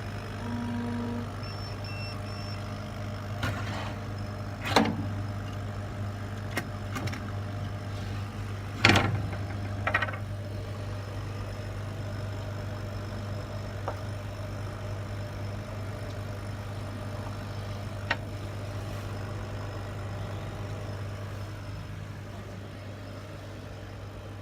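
Kamach 6090 CO2 laser cutter running with a steady low mains hum, broken by a few sharp knocks and clicks, the loudest about five and nine seconds in.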